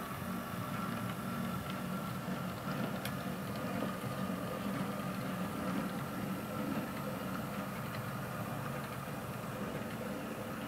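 Model diesel locomotive's DCC sound decoder playing a diesel engine idling steadily.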